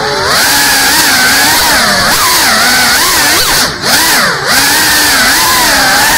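GEPRC CineLog 35 cinewhoop drone's brushless motors and ducted propellers whining at high throttle, the pitch swinging up and down constantly as the throttle changes. Twice, in the middle, the sound drops briefly and then snaps back up as the throttle is chopped and punched again.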